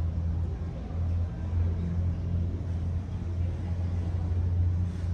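Low, steady rumble of airport apron machinery, swelling and dipping slightly.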